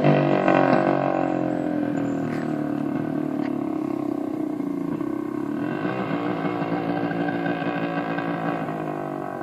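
1975 Suzuki GT550 two-stroke three-cylinder motorcycle riding away. Its engine note drops and fades, then rises again about five and a half seconds in as the revs climb, before fading further.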